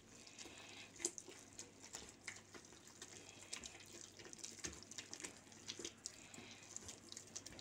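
Hands mixing flour and water into a stiff dough in a plastic bowl: faint, irregular soft rustling and squishing with scattered light taps.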